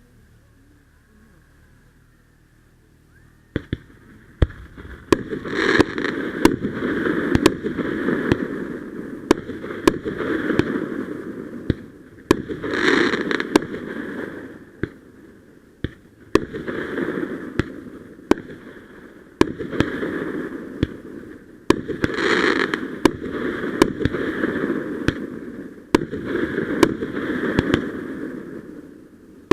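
Consumer fireworks going off: after a quiet start, a run of sharp bangs and pops begins about three and a half seconds in. Between them come swelling rushes of noise a second or two long.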